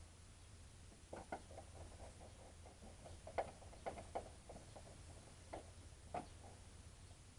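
Faint run of small clicks and taps, with a few sharper clicks, as wires are fitted into the screw terminals of a small solar charge controller with a screwdriver.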